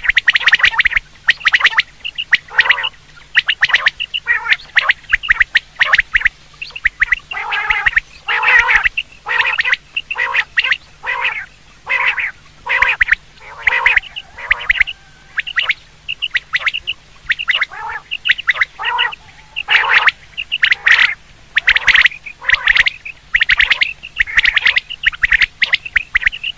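Quail calls repeated over and over in quick clusters of short notes, as played to lure quail, with a faint steady hum beneath.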